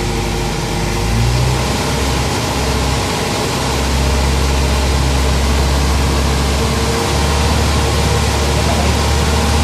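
Car engine running steadily with a low hum, its speed picking up slightly about a second in and again near four seconds.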